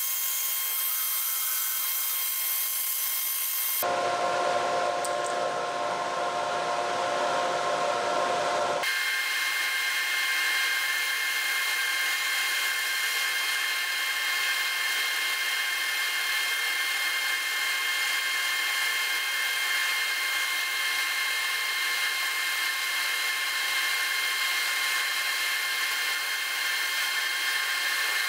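A Shopsmith-type multi-tool running its scroll saw (jigsaw) attachment to cut out templates: a steady motor whine with several held tones. The sound changes abruptly twice, about 4 and 9 seconds in.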